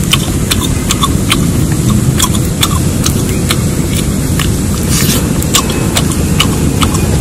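Crunching and chewing as a cooked frog is torn apart and eaten: sharp, irregular crackles several times a second over a loud, steady low rumble.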